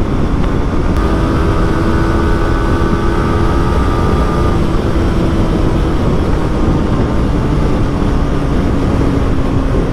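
Yamaha R15 V3 motorcycle's 155 cc single-cylinder engine running at highway speed in fourth gear. Its steady note is mostly buried under heavy wind rush over the microphone.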